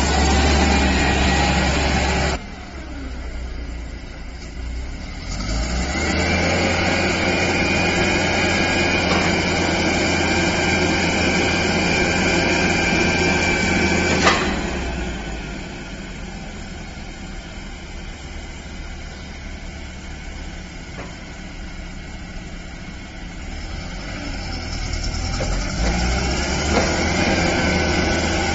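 HIFOUNE C Series gasoline forklift engine running, speeding up and dropping back to idle in turn. In its busier middle stretch, while the mast is being raised, a steady high whine runs over the engine and ends in a sharp click about halfway through; the engine then idles more quietly and picks up again near the end.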